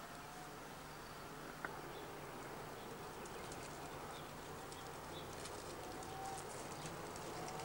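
Faint outdoor ambience: a few short bird calls, a single click about one and a half seconds in, and from about halfway on a light scattered crackle, like paws crunching on gravel.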